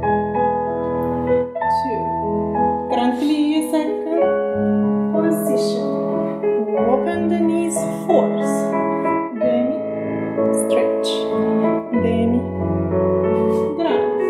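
Piano music accompanying a ballet class plié exercise, notes changing at an unhurried pace.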